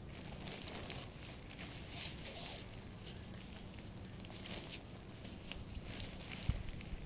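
Tent flysheet fabric rustling and crinkling in short bursts as it is pulled and adjusted over a dome tent, with a single thump about six and a half seconds in.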